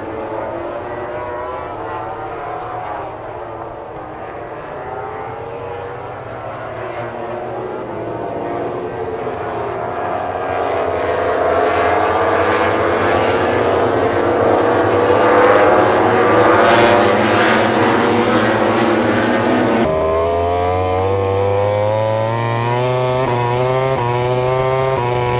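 MotoGP race bikes, Ducati V4s and a Yamaha, screaming at racing speed, their engine notes rising and falling as they pass. At about twenty seconds in the sound changes abruptly to one bike's engine revving hard, climbing in steps through several quick upshifts.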